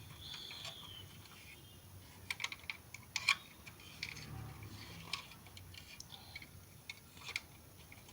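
Scattered small clicks and taps from a toy model car being handled and turned over in the hands, with a cluster of quick clicks two to three seconds in.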